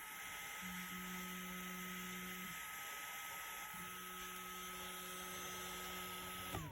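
Trianglelab 30 mm hotend fan (MPN HD3010H24B, dual ball bearing, 9000 RPM) running at full speed: a steady rush of air with a steady whine. Near the end it is switched off, and the whine falls in pitch as it spins down.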